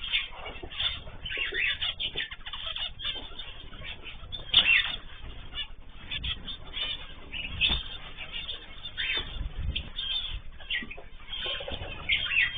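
A mixed flock of cage birds (cockatiels, zebra finches and canaries) chirping and calling, with many short calls overlapping irregularly.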